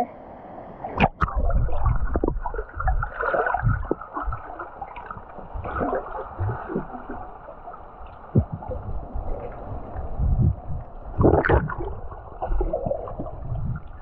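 Water gurgling and sloshing, heard muffled from underwater, with low thuds throughout and a few sharp knocks: two about a second in and more at about eleven and a half seconds.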